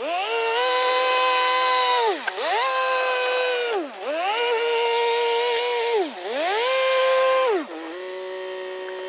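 John Deere backhoe's diesel engine revving up, holding, and dropping back four times in a row, about every two seconds, as the loader works. Near the end it settles to a steady, lower idle.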